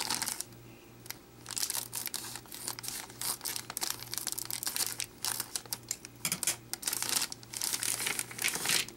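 Clear plastic packaging bag crinkling in irregular rustles as it is cut open with scissors and handled.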